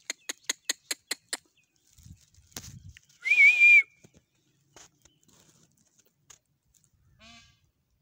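Peacock calling: a rapid run of about eight short, sharp calls in the first second and a half, then a loud, wavering, whistle-like call lasting about half a second a few seconds in, with a few fainter calls after.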